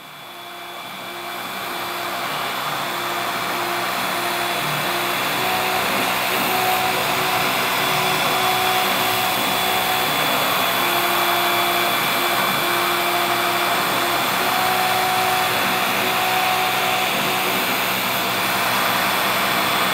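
Creality Falcon 2 laser engraver running a cut in foam sheet: a steady rush of air from its air assist that builds over the first couple of seconds and then holds, with short pitched whines from the motors driving the laser head that come and go as it moves.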